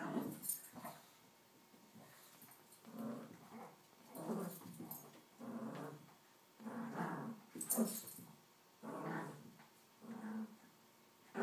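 Small dog growling in play over its toy: a string of about ten short growls, roughly one a second.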